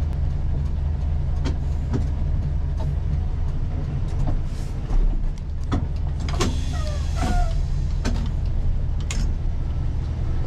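MAN Kat 4x4 truck's diesel engine running with a steady low drone, first standing, then moving off slowly through a gateway. Scattered knocks and rattles sound over it, the loudest a little before halfway.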